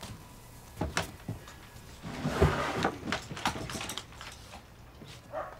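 Knocks and clatter of wood being handled, with a scraping rustle through the middle: an old plywood bentwood-lamination form fitted with wooden clamps being shifted and pulled out from among stored things.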